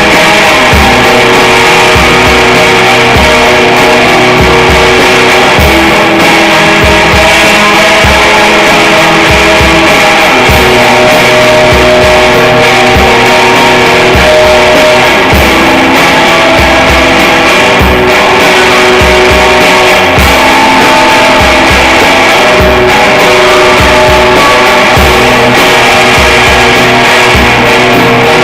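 Loud, heavily distorted rock music from two guitars and a drum kit: sustained guitar notes over a steady kick-drum beat, with no singing.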